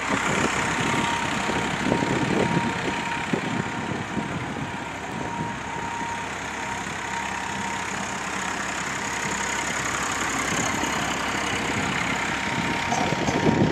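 Diesel tractor engine running, with heavier throbbing in the first few seconds and again near the end, and a steady high-pitched whine throughout.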